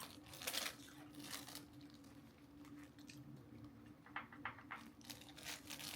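Someone chewing a mouthful of chicken salad on crackers, faint crunching in a few short bursts, with a few small clicks near the end.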